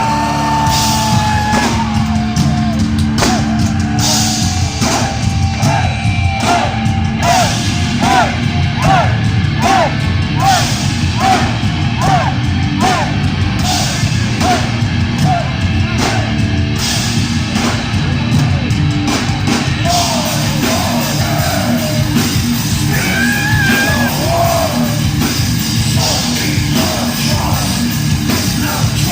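Heavy metal band playing live: distorted guitars, pounding drums and shouted vocals.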